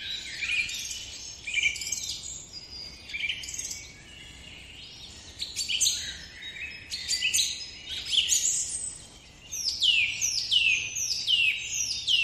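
Birdsong: bursts of chirping and trilling calls with short pauses between them, and from about ten seconds in a run of quick falling whistled notes repeated about twice a second.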